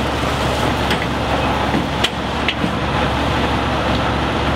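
Fire engine's diesel idling with a steady low rumble. Three short sharp clicks, about a second, two seconds and two and a half seconds in, come as 4-inch supply hose is pulled into the aluminium hose bed.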